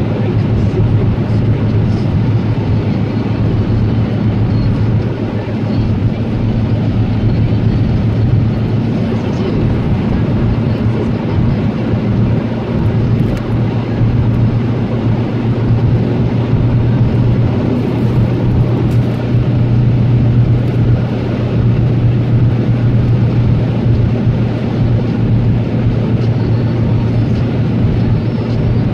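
Steady engine and tyre noise inside a car's cabin cruising at road speed, with a constant low drone.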